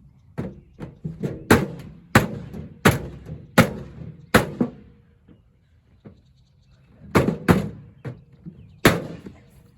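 Heavy blows striking a microwave oven's sheet-metal casing, each a sharp thunk with a short metallic ring: a steady run of about eight hits, a pause of a couple of seconds, then about four more.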